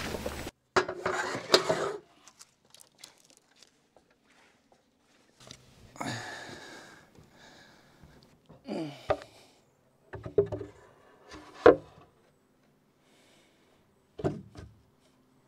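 Handling sounds of a large laminated bowsprit being carried and set onto a sailboat's bow: scattered knocks, bumps and scrapes with short quiet gaps between them, the sharpest knock about three-quarters of the way through.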